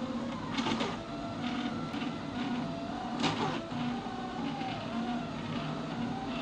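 Kossel-style delta 3D printer running as it lays down the first perimeter lines: its stepper motors whine in tones that glide up and down with each move of the print head, over a steady hum. Two short, louder rushes stand out, about a second in and near the middle.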